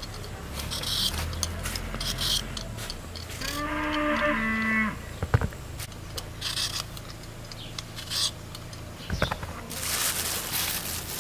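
A cow moos once, a call of about a second and a half that steps down slightly in pitch near its end. Around it come short scraping strokes of a hand-held vegetable peeler on potato skin, and a few light clicks.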